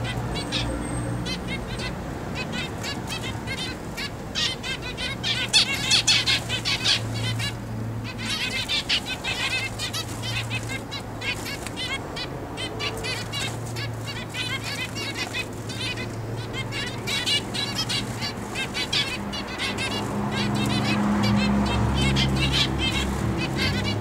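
Flock of zebra finches calling: a dense chatter of many short chirping calls, busiest about six seconds in, over a steady low hum.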